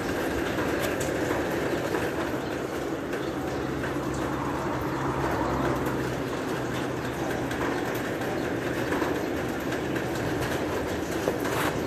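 Water sprinklers running over a woven reed-mat aviary roof, making a steady rushing noise, with a low hum partway through and a few light clicks.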